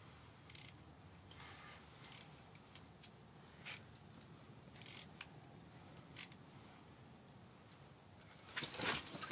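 Spinning reel being cranked on a fish, with faint mechanical clicks and short scratchy rasps every second or so over a low steady hum. Louder scuffling starts near the end.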